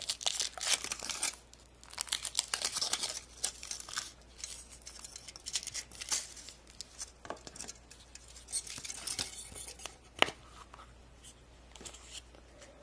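Foil wrapper of a Kinder Surprise chocolate egg being peeled off and crinkled in the hands, in many short crackly bursts, then the chocolate shell and plastic capsule handled, with a sharp click about ten seconds in.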